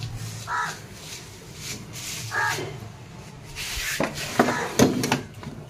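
An animal calling twice in short calls about two seconds apart, over a steady low hum. A cluster of sharp knocks and clatter about four seconds in, the loudest part.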